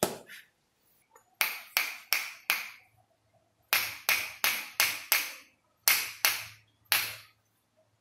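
Small steel hammer striking a metal adjusting instrument held against a man's neck, a hammer-and-instrument chiropractic adjustment. About thirteen sharp metallic taps with a short ring, in quick runs of about three a second: a single tap, then four, five, two and one.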